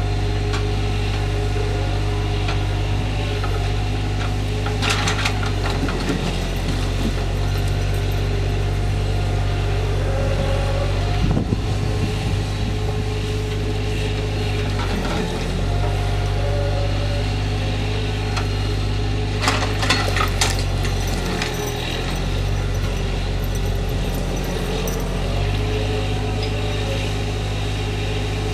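Diesel engine driving a log truck's hydraulic knuckleboom loader, running steadily, its pitch dipping briefly several times as the hydraulics take load. Logs clatter and knock together in the grapple about five seconds in and again around twenty seconds in.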